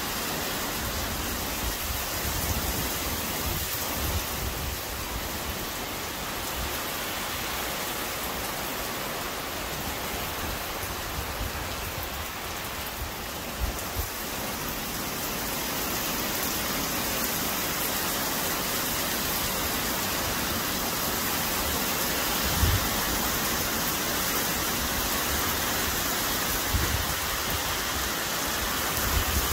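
Heavy downpour: rain falling steadily and densely, growing a little heavier about halfway through, with a few brief low thumps.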